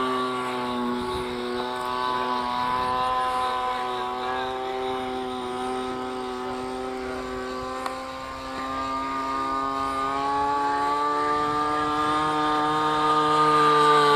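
Radio-controlled model airplane's motor droning at a steady high pitch as it flies overhead. It fades a little about halfway, with one short click, then grows louder and rises slightly in pitch as the plane comes closer near the end.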